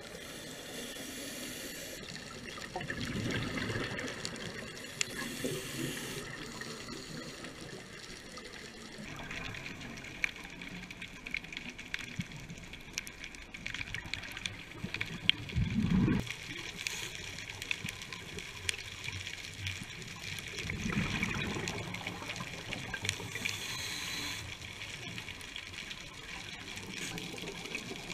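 Scuba regulator breathing picked up underwater: hissing inhalations and several rushes of exhaled bubbles, the loudest about halfway through.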